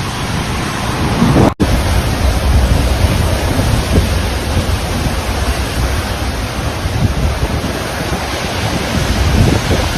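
Tropical cyclone gale-force wind and heavy rain as a loud, unbroken rush of noise, with gusts buffeting the microphone. The sound drops out for an instant about a second and a half in, then carries on.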